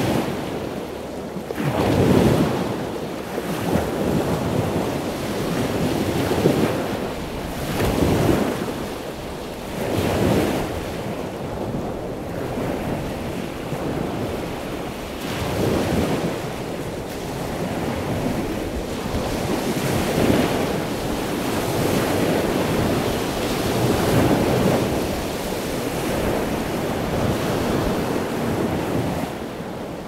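Ocean surf on a beach: waves breaking and washing in, a steady rush that swells and eases every few seconds.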